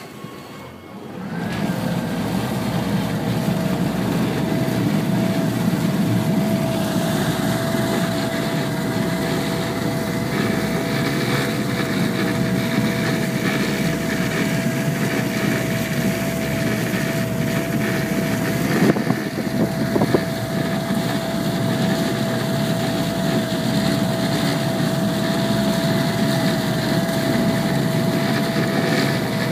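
Yamaha outboard motors running under Helm Master joystick control as the boat turns on the spot: a steady engine drone with a held whine, coming up about a second and a half in.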